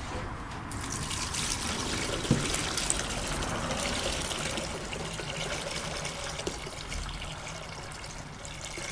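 Cleaning solution draining out of a 1968 Impala fuel tank into a plastic funnel and jug, a steady splashing trickle that starts about a second in. A brief knock comes a little after two seconds.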